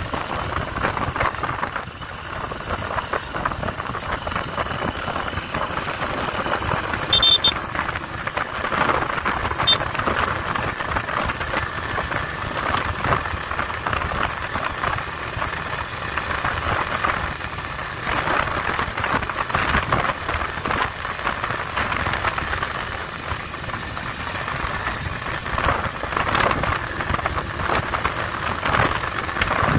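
A motorcycle running along a road, its engine mixed with steady wind rush on the phone's microphone. Two brief sharp sounds come about seven and ten seconds in.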